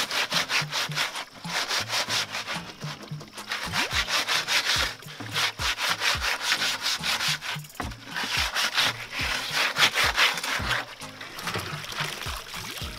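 A hand scrubbing the outside of a plastic jerry can to wash it: fast back-and-forth rubbing strokes in several bouts, with brief pauses between them.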